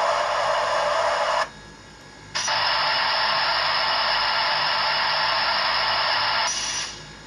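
Steam hiss played by the LokSound 5 sound decoder in a model Santa Fe Mikado through its small speaker: a steady hiss that cuts off about a second and a half in, then a second long hiss that starts sharply a second later and fades out near the end.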